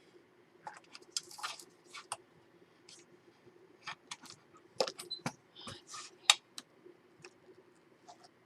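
Craft knife scraping and nicking along the edge of paper glued onto a chipboard album cover, with paper rustling and light taps in irregular strokes; the knife is not cutting much, a sign of a dull blade.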